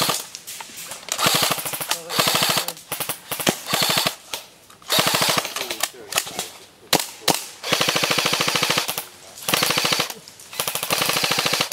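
Airsoft rifles firing full-auto: a rapid, evenly spaced clatter of shots in repeated bursts, each about a second long, with short pauses between.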